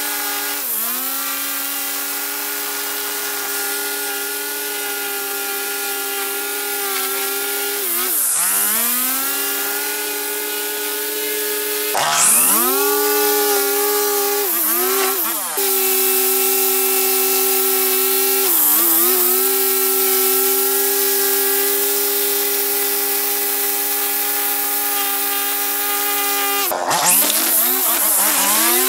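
String trimmer running at speed with a steady high whine. Its pitch dips briefly and climbs back several times. Near the end it turns harsher and wavers as the spinning line cuts along the edge of the concrete path.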